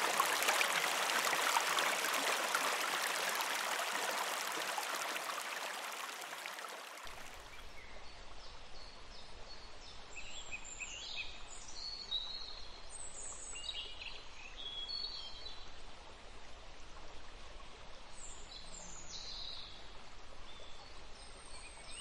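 Rushing water of a waterfall, fading away over the first seven seconds or so. After it stops, birds chirping faintly in short, repeated calls over a low steady hiss.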